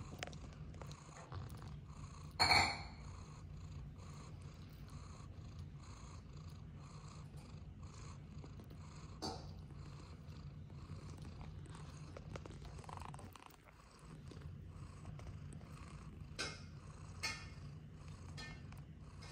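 Cat purring steadily and continuously, with a brief break about two-thirds of the way through. A short, sharper sound comes about two and a half seconds in, and there are a few faint ticks later on.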